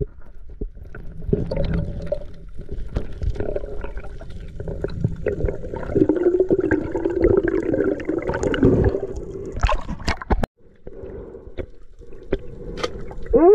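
Water gurgling and sloshing around a submerged camera, with scattered clicks and knocks.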